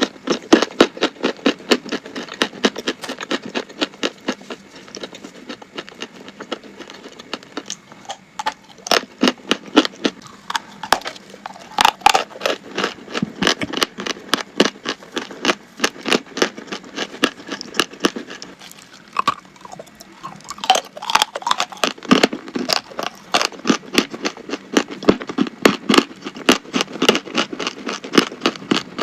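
Crunchy chalk being bitten and chewed: a dense run of sharp crackling crunches, several a second, easing briefly about two-thirds of the way through.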